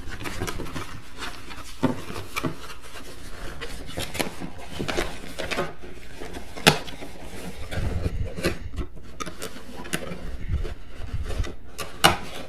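Cardboard box being handled and turned over: rubbing and scraping of cardboard with scattered light taps and knocks, and two sharper knocks, about six and a half and twelve seconds in.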